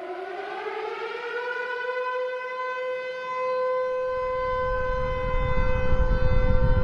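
Civil defense siren winding up, its pitch rising over the first second or so and then holding a steady tone. A low noise swells in underneath from about four seconds in.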